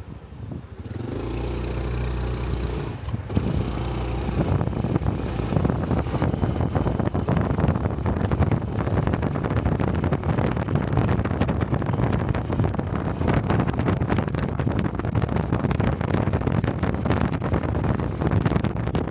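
Honda Cub 125 cc single-cylinder motorcycle engine: a steady low engine note sets in about a second in, then the bike rides on with the engine running under a constant rush of wind across the helmet-mounted microphone.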